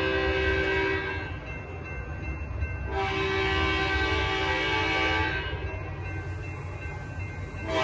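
Horn of an approaching Altamont Corridor Express commuter train, sounded from its leading cab car for the grade crossing. One long blast ends about a second in, a second long blast sounds from about three to five seconds, and the next begins at the very end, over a steady low rumble.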